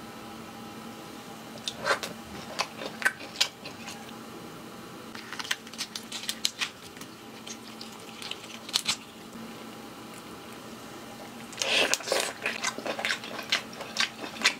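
Boiled shrimp and lobster in garlic topping being peeled and pulled apart by hand: scattered wet squishes and sharp crackles of shell, coming thickest near the end.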